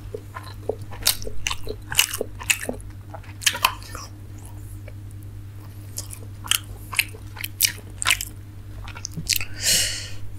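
Close-miked chewing and mouth smacking of a person eating steamed momos, with irregular wet clicks, and a longer, noisier sound near the end.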